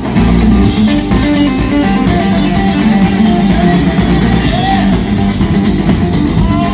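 A live band playing, with electric guitars and a drum kit, loud and continuous.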